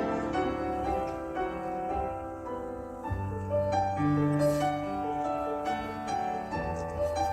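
Instrumental background music led by piano, with single notes struck one after another.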